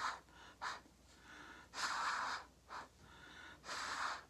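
A person blowing hard through a plastic drinking straw onto wet acrylic paint, in long hissing puffs about two seconds apart with quick breaths in between, pushing the paint out across the tile.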